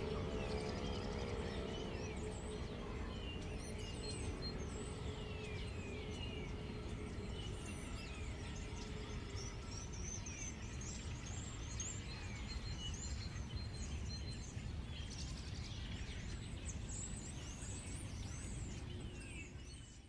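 E57 electromechanical motor siren winding down at the end of its test alarm: its falling tone fades away over the first few seconds as the rotor, which rubs, coasts to a stop. Birds chirp over a steady background noise for the rest of the time.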